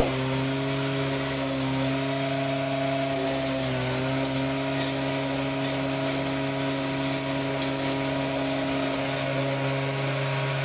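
Electric motor of a combination jointer-planer running steadily, driving the side-mounted horizontal boring chuck as the bit cuts into a wooden board; its hum dips slightly in pitch about four seconds in as the bit takes load. A single sharp click right at the start.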